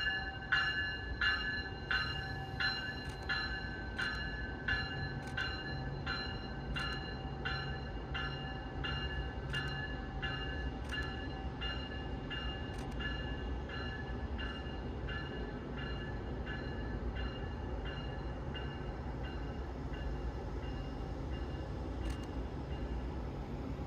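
Departing Brightline train: its locomotive bell rings steadily at about two strokes a second, fading away over roughly the first half, over the low rumble of the Siemens Charger diesel-electric locomotive and the train pulling away.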